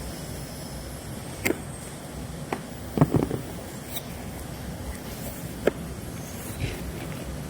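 Glass vials and their packaging being handled: a few sharp clicks and light knocks, with a quick cluster about three seconds in, over a steady low hum.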